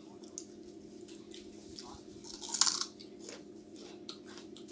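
Close-up eating sounds: chewing and small wet mouth clicks from a person eating chicken curry and samosa by hand, with one louder crunch about two and a half seconds in that lasts about half a second. A steady low hum runs underneath.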